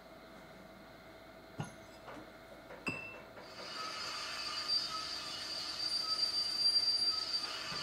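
Two sharp metallic clinks, then a steady high-pitched mechanical squeal sets in about three and a half seconds in and keeps going, louder than the clinks.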